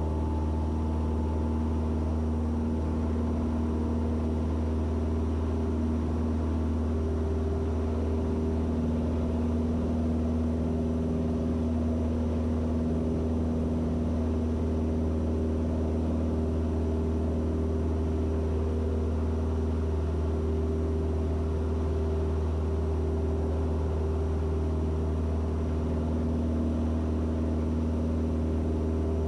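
Piston engine and propeller of a Van's RV-6A light aircraft running steadily, a constant low drone heard in the cockpit.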